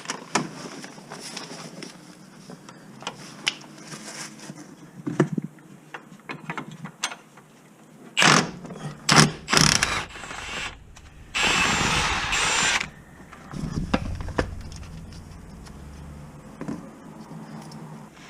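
Mechanic's tools being worked on a vehicle: scattered clicks, ratcheting and metallic clanks, with a loud steady rush of noise lasting about a second and a half just past the middle.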